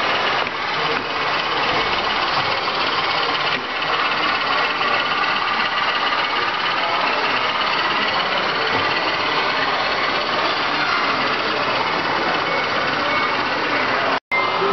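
Steady din of a model-railroad show hall: model trains running on the layout's track mixed with indistinct crowd chatter. The sound cuts out for a moment near the end.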